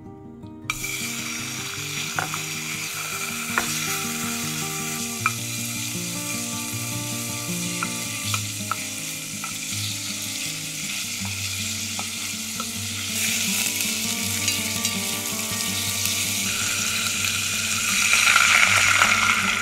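Beef cubes sizzling in hot cooking oil and sesame oil in a pot. The sizzle starts suddenly about a second in, and the stir-frying with a wooden spoon brings occasional sharp knocks. Near the end, vegetable broth pours from a carton into the pot and the sound gets louder.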